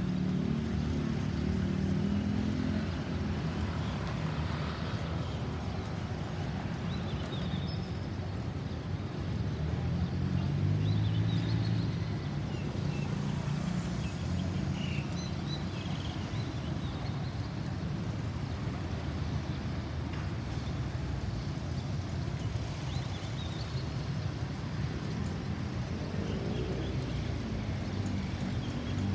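Road traffic: vehicle engines passing over a steady traffic rumble. There are louder passes near the start, around ten seconds in, and near the end, where one engine rises in pitch as it accelerates. No siren is sounding.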